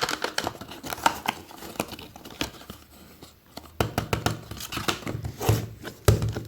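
Close-up unwrapping of a puzzle cube's plastic packaging: irregular crinkling, tearing and sharp clicks and snips of handling.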